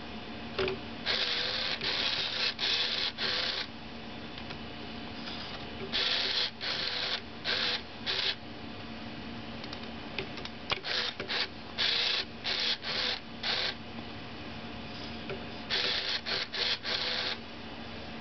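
Furby toy's internal motor and gears whirring in short bursts, coming in four clusters as it reacts to being petted, over a steady low hum.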